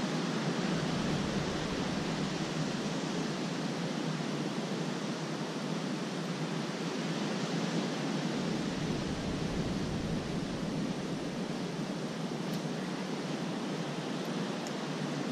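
Steady rushing outdoor noise with no distinct events. A low rumble joins it about eight seconds in.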